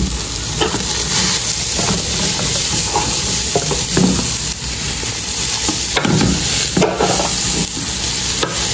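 Shredded chicken sizzling as it sautés in oil in a metal pot, with a wooden spoon stirring and scraping it against the pot at irregular intervals over the steady sizzle.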